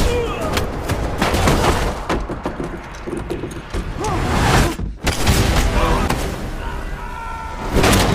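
Film fight-scene soundtrack: gunfire and heavy blows and thuds in a close-quarters fight, with shouted voices. The sound drops out sharply for a moment about five seconds in.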